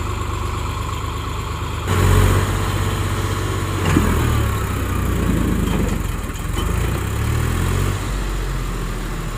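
Swaraj tractor diesel engine running, growing louder about two seconds in as it works under load, then easing back near the end. A single sharp knock sounds about four seconds in.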